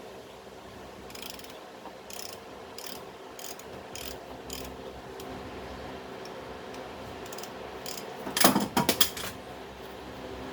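Socket ratchet clicking in a series of short strokes, working a bolt loose. About eight and a half seconds in, a metal tool or part drops and clatters several times.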